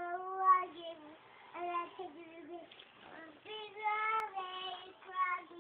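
A young girl singing, held notes that slide up and down in short phrases with brief pauses between them.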